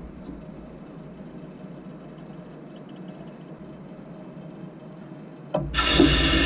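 Low steady rumble beside a standing steam locomotive. Near the end a sudden loud rushing hiss of released steam starts.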